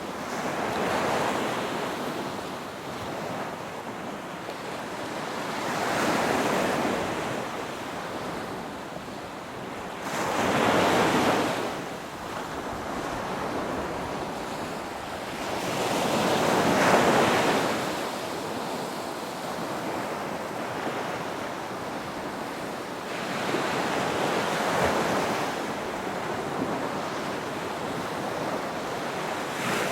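Ocean waves breaking on a shore, a surge of surf every five to six seconds over a steady wash, with some wind on the microphone.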